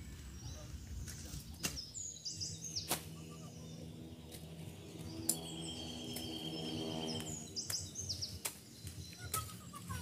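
Small birds chirping in short high calls, with scattered crackles and snaps of dry corn leaves and stalks as people walk through the cornfield.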